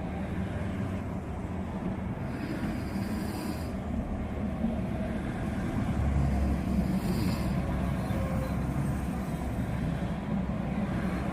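A man snoring in sleep, breaths coming a few seconds apart in a steady rhythm, over a steady low rumble.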